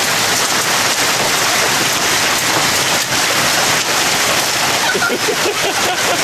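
Hail coming down steadily on a lawn: a dense, even hiss made up of many small ticking hits.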